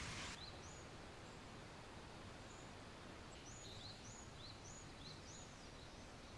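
Faint outdoor ambience: a low steady hiss with a small bird chirping, a dozen or so short chirps that come closer together in the second half.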